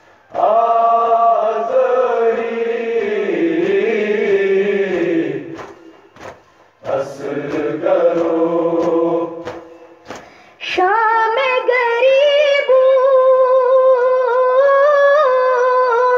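Unaccompanied noha, a lament for Ali Asghar, sung: lower, fuller voices chant two phrases with short breaks between them, then about eleven seconds in a single high boy's voice takes up a long, held phrase.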